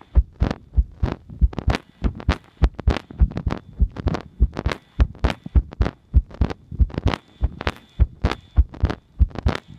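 A human heartbeat heard close up, as through a stethoscope or a microphone on the chest. It beats in a fast, regular run of paired thumps, several a second, each with a sharp click on top.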